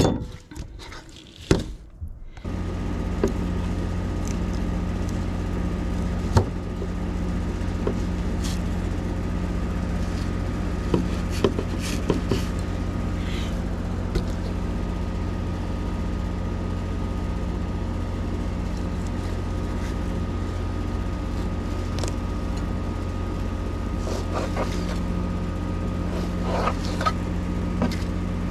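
A steady electric motor hum starts abruptly about two seconds in and runs on unchanged, with a few faint clicks and scrapes of knife work on top.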